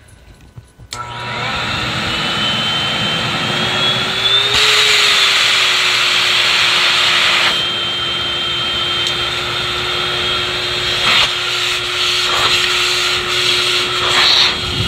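High-velocity forced-air dog dryer switched on: its motor whine rises in pitch as it spins up over a few seconds, then the blower runs loud and steady. About four seconds in the blowing grows louder and brighter, then eases back about three seconds later.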